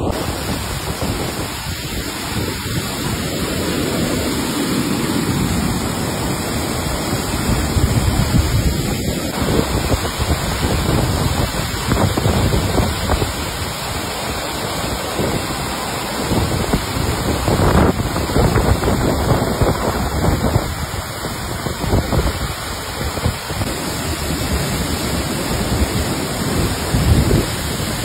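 Waterfall in heavy flood, a steady, loud rush of water pouring down a rock face and over a concrete step. Low gusts of wind buffet the microphone now and then. The heavy flow is what has closed the falls to bathers.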